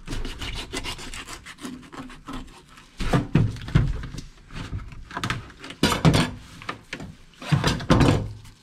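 Kitchen knife sawing and scraping through a nylon mesh net bag, with the net rustling and knocking against a plastic crate as it is cut and pulled; louder handling knocks come about 3, 6 and 8 seconds in.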